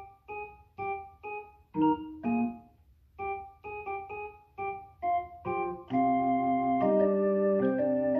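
Yamaha PSR-150 portable keyboard played on its electric organ voice. Short detached chords, two or three a second, each dying away quickly, give way about six seconds in to steady held chords that change every second or so.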